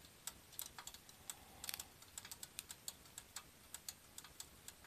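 Faint, irregular small ticks and pops, several a second, from an electric hot plate cooking frozen shrimp shumai. There is a brief cluster of them about one and a half seconds in.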